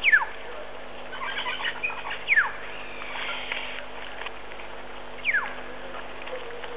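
A bird's short whistle falling steeply in pitch, given three times about two and a half to three seconds apart, with a brief burst of short chirps between the first two.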